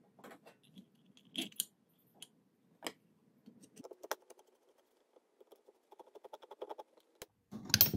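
Small metal clicks and taps as nuts are fitted onto the brass terminal studs of an electric-vehicle contactor, then a ratchet clicking quickly for about a second as a socket on an extension bar tightens a nut. A louder knock comes near the end.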